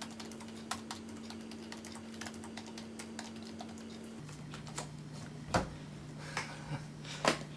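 Typing on a computer keyboard: irregular key clicks, with a few louder strokes in the second half.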